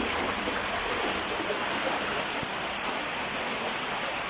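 Fast-flowing floodwater rushing steadily in a strong current.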